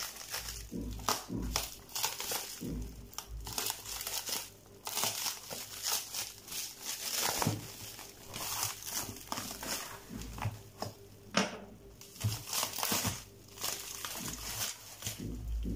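Thin plastic shrink wrap crinkling and rustling in irregular handfuls as it is pulled off a cardboard box.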